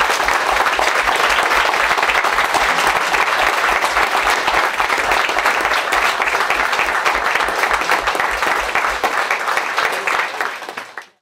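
Audience applauding steadily after a lecture, fading out near the end.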